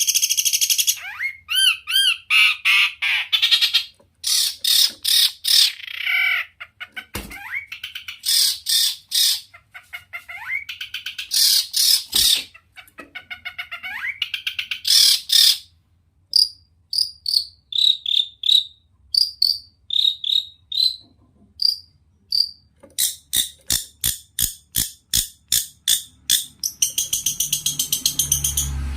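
Long-tailed shrike (cendet) singing a fast, varied song: buzzy rattling trills, then a string of short clear whistled notes past the middle, then a quick run of dry clicks. A low hum comes in near the end.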